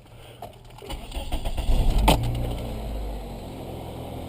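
2003 Toyota Corolla's 1.8-litre four-cylinder engine cranking and starting about a second in, rising briefly, then settling into a steady idle. The engine is being treated for a rough idle, and its computer has just been reset by disconnecting the battery.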